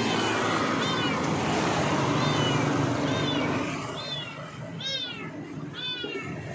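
Kitten trapped under a car's engine, meowing over and over in short high-pitched cries, about one a second; the last few cries are the loudest.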